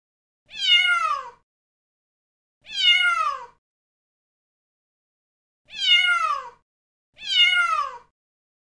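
Domestic cat meowing four times, each meow about a second long and falling in pitch at the end, with pauses between them.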